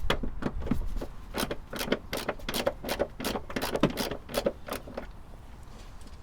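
Socket ratchet clicking in a run of quick, uneven clicks while Torx bolts on a rear shock absorber mount are loosened and spun off. The clicking stops about five seconds in.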